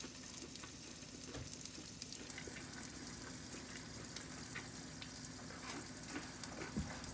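Mini frickles (wonton-wrapped pickles) frying in hot oil: a steady sizzle dotted with many small crackles and pops, over a faint steady low hum.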